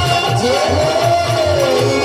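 Live stage music: a steady low drum beat under a melody that swoops up about half a second in and then slowly falls.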